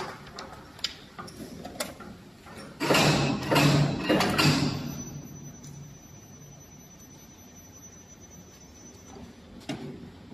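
Spiral duct forming machine at work: scattered mechanical clicks and knocks, then several loud noisy surges about three to four and a half seconds in, settling to a faint steady hum with a thin high whine, and a few more knocks near the end.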